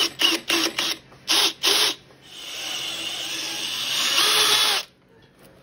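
Cordless drill with a step bit cutting a half-inch hole through a plastic ATV dash panel: several short trigger bursts, then one steady run of about two and a half seconds that stops suddenly as the bit breaks through.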